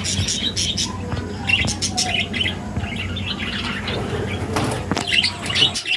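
A flock of budgerigars chirping in many short, rapid calls, over a steady low hum.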